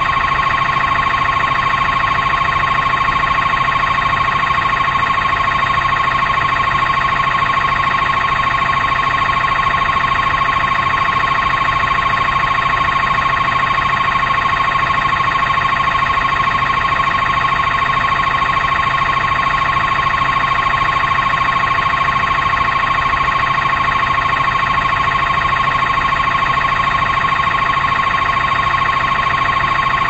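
A loud, steady, unbroken high-pitched tone with a low hum beneath it, not changing in pitch or level.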